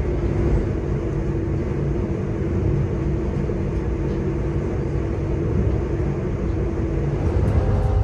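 Passenger train running, heard from inside the coach: a steady low rumble with a constant hum over it.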